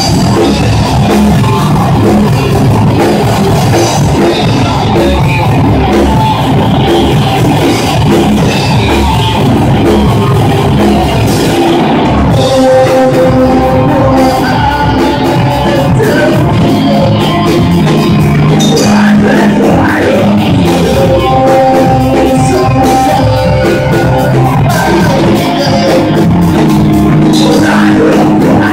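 A live heavy metal band playing loud: distorted electric guitars, bass guitar and a drum kit. Long held notes come in about halfway through.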